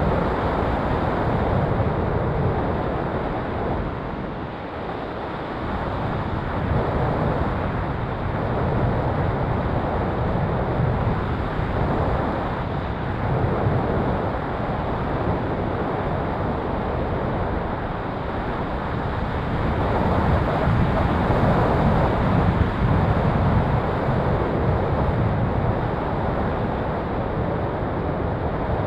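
Steady rush of airflow over the microphone of a camera riding on a radio-controlled glider in flight, swelling and easing in strength, with no motor tone heard.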